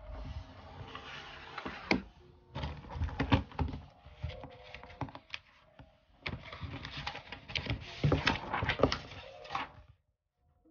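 Objects being handled and set down on a tabletop: a rustling and scraping broken by sharp knocks and clicks, in three stretches with short pauses between.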